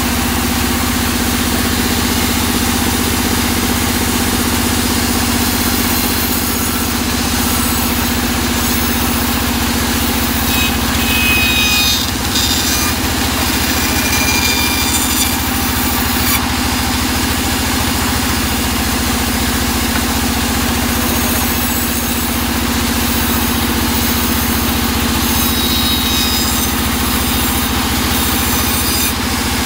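Large vertical band saw running with a steady, loud drone while teak planks are fed through the blade by hand, with a few brief high squeaks from the blade in the wood.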